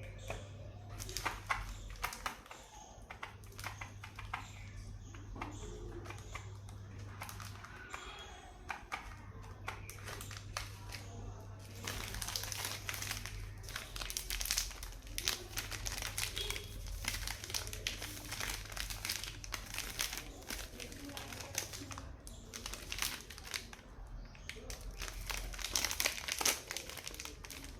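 Chocolate and candy wrappers crinkled and torn open by hand, in a continuous stream of crackles. It is busiest in the middle and again near the end, over a low hum.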